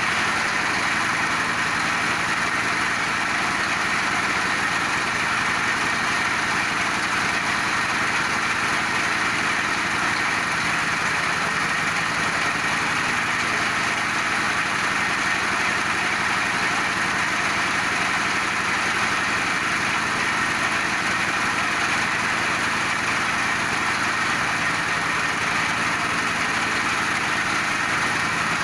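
Feed pellet machine running steadily under power, a continuous even mechanical drone with no pauses or changes.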